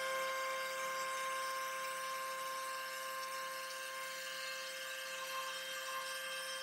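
CNC-mounted wood router running with a steady high-pitched whine as its bit travels along a slot in a walnut board.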